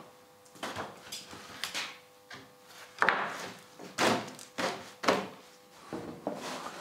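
Long pine planks knocking against each other as they are stood on end against a stack of boards: a run of separate wooden knocks, the loudest about three and four seconds in.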